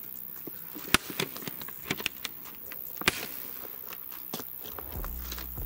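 Scattered sharp cracks of firecrackers and fireworks going off at irregular intervals, the loudest about one second and three seconds in.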